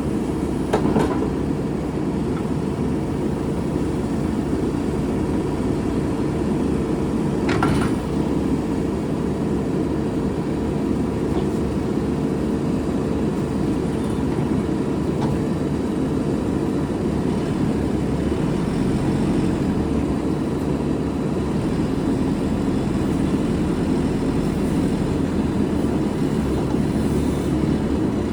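Diesel engine of a JCB 3CX14 loader backhoe running steadily, with two short knocks, one about a second in and one about seven seconds in.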